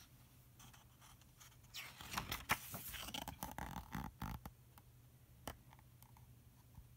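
Paper pages of a hardcover picture book being turned and handled: a run of soft rustles and scrapes lasting a couple of seconds, then one light click.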